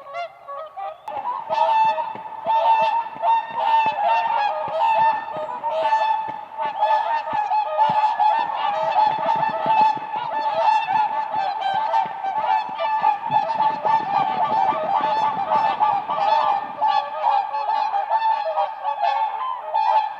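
A flock of whooper swans calling: many loud, trumpeting honks overlapping into a continuous chorus that swells about a second in.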